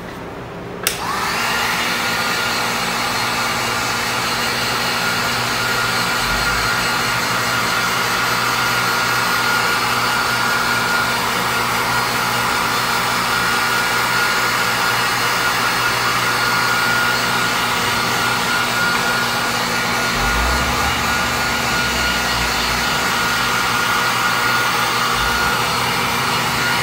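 Electric heat gun switched on about a second in, its fan motor rising to a steady high whine over the rush of hot air as it flash-dries plastisol ink on a printed T-shirt.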